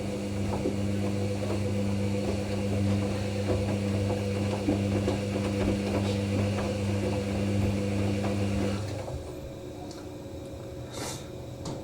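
Hoover NeXtra HNL3146 washing machine running in its Synthetics 50 °C wash: a steady motor hum with a patter of small clicks that stops abruptly about nine seconds in. A fainter hum follows, with a single click near the end.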